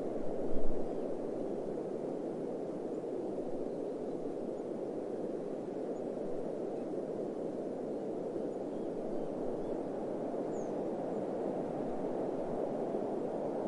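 Steady, even rushing noise of desert wind ambience, with a brief low thump about half a second in.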